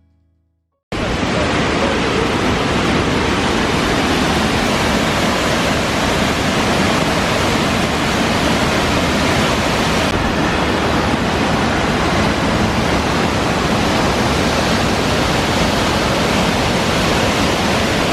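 Loud, steady rush of a waterfall, cutting in abruptly about a second in.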